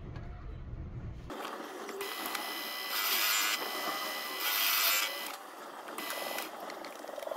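Proxxon mini lathe running with a steady whine while a cutting tool turns down a steel rebar shaft. Two louder hissing stretches of cutting come about three and four and a half seconds in, and there is a sharp click at the very end.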